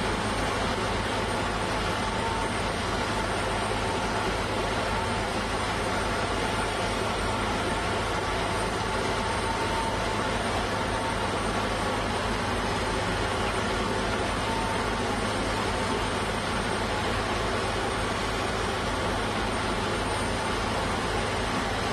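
Rotary piling rig running steadily while its toothed drilling bucket works in a slurry-filled bored-pile hole: a constant, unbroken machine noise with no pauses or changes.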